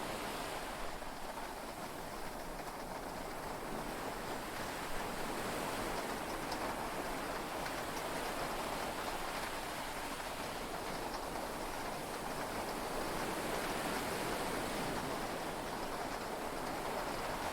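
Heavy rain falling steadily on a yacht, heard from inside the cabin, an even wash of noise with no thunder.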